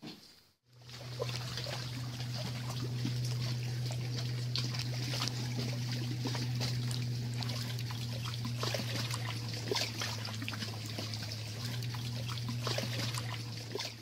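A steady low hum with a hissy crackling over it, full of small irregular clicks, starting about a second in.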